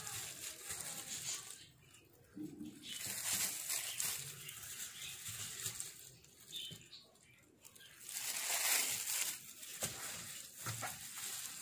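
Gloved hand handling marinated raw chicken wings in a bowl: wet squelching of the coated meat and rustling of the plastic glove, in three bouts with short pauses between.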